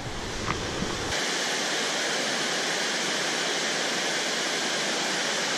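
Steady rush of river water flowing over a weir. A low rumble underneath stops abruptly about a second in.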